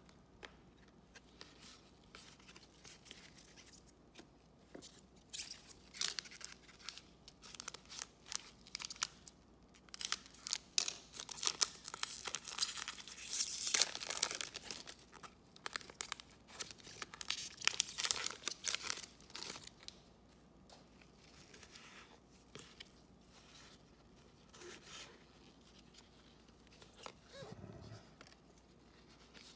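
A crinkly plastic wrapper being torn open and crumpled in nitrile-gloved hands. It comes as a run of sharp crackles that grows thickest in the middle, then fades to faint handling of cards near the end.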